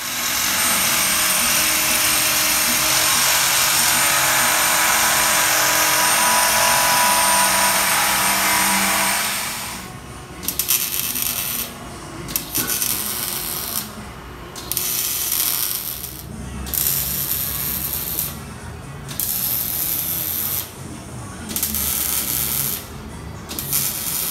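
Metalworking on a car's exhaust during a muffler delete: a loud, steady hiss for about nine and a half seconds, then a run of separate bursts about a second long with short gaps between them, typical of tacking or cutting in short passes.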